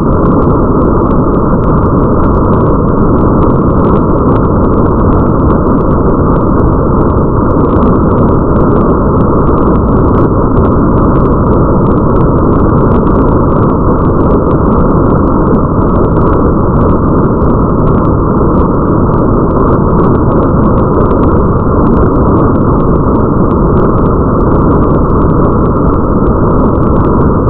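Steady, muffled rain ambience over a low rumble, with faint scattered ticks of drops above it.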